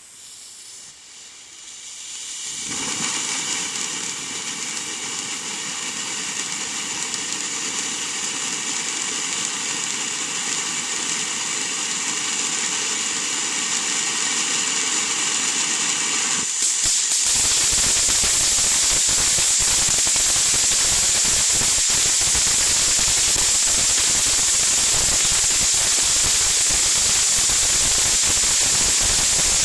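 Firework fountain spraying sparks with a steady hiss that starts about two and a half seconds in. A little past halfway it turns louder and fills with dense crackling.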